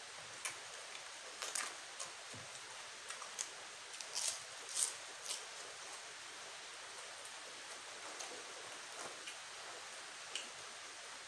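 Steady hiss of falling rain, with a run of sharp clicks in the first half.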